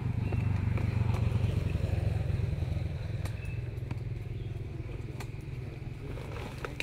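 A small engine running close by, its low hum swelling over the first couple of seconds and easing off after, with a few light clicks over it.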